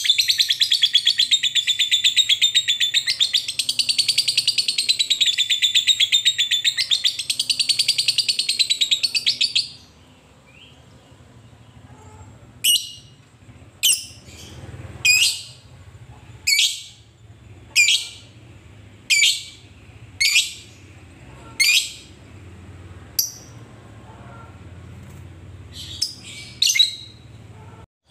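Fischer's lovebird giving a long, fast chattering trill, the 'ngekek', lasting about ten seconds. After a short pause it makes a string of single sharp chirps, about one every second and a half.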